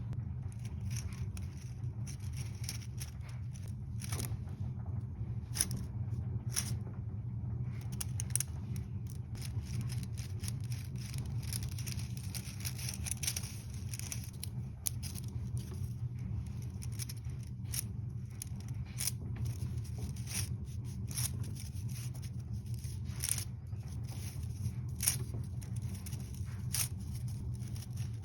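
3D-printed plastic articulated fidget worm being twisted and flexed by hand, its segments giving irregular clicks and light scrapes. A steady low hum runs underneath.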